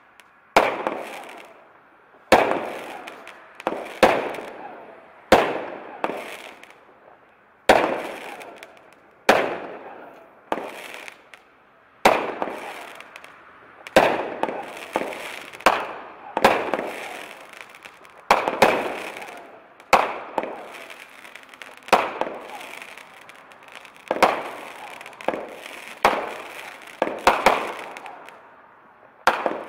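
Jack of Clubs consumer fireworks cake firing shot after shot: a sharp bang every second or two, sometimes two in quick succession, each trailing off before the next.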